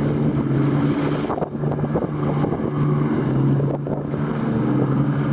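Boat engine running steadily with a low hum, with wind buffeting the microphone.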